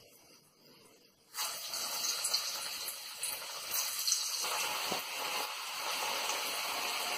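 Moong dal batter dropped into hot oil in a kadhai, setting off a sizzle about a second in that grows louder again near the middle as more pakoras go in. Scattered crackling pops come through the sizzle as they deep-fry.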